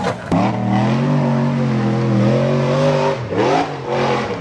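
Side-by-side UTV engine revving up hard and held at high revs under full throttle, dropping off about three seconds in.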